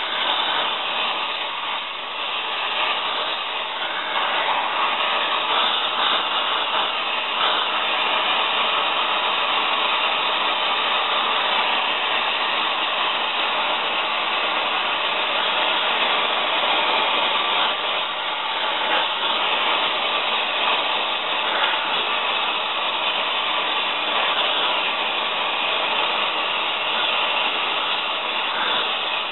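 Oxy-acetylene torch with a rosebud heating tip burning steadily, a constant rushing noise, as it heats rusted bolts to free them.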